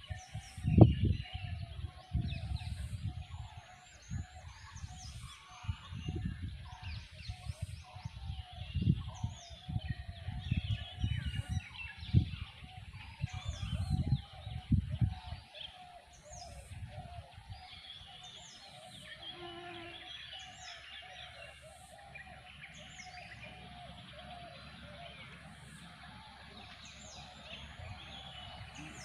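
Outdoor chorus of wild birds chirping and calling, with a short high chirp repeated every couple of seconds. For the first half, uneven low rumbles of wind or handling on the microphone are the loudest sound; they stop about halfway through, leaving the bird calls alone.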